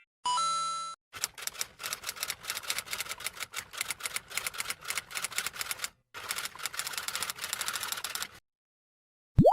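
Typewriter typing: a rapid, irregular clatter of key strikes, with a brief pause about six seconds in, preceded by a short ding. Near the end a quick rising whistle sweeps up in pitch.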